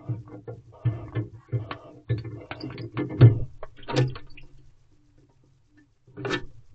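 Barn owl in a wooden nest box: a run of irregular short taps, scuffs and knocks, with a louder burst about four seconds in and one more near the end.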